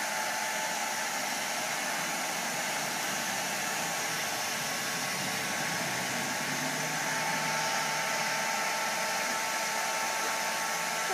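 Handheld hair dryer running steadily on hot air, a rush of blowing air with a faint steady whine.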